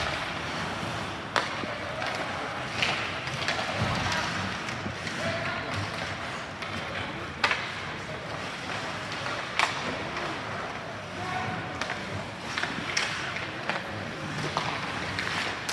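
Ice hockey play: skates scraping on the ice and sharp clacks of sticks and puck every few seconds, the loudest about seven and a half seconds in, over a murmur of spectators talking.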